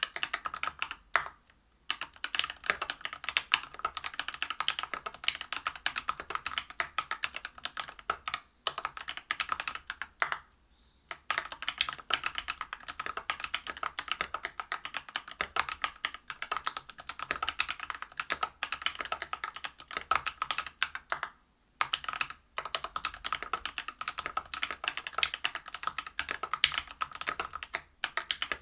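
Fast typing on a Whale 75 mechanical keyboard with lubed Everglide BeesWax 67g linear switches, a brass plate and PBT keycaps. The key strokes come in a dense stream, broken by a few brief pauses; the longest, about a second, falls around a third of the way in.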